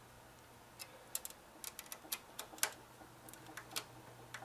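Faint, irregular light clicks and taps of hands handling parts inside a computer case, about a dozen small clicks bunched between one and four seconds in.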